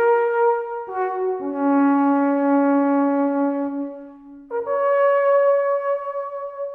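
Brass instruments playing music in long held notes that change every second or two, sometimes two notes sounding together, with a brief dip about four seconds in.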